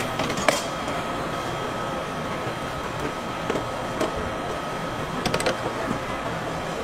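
Steady mechanical hum with a thin constant whine, broken by a few sharp clicks about half a second in and a quick cluster of clicks a little after five seconds.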